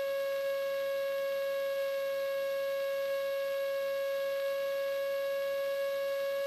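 A steady, unchanging high whine with a row of overtones over a faint hiss, as picked up on a light aircraft's intercom audio feed.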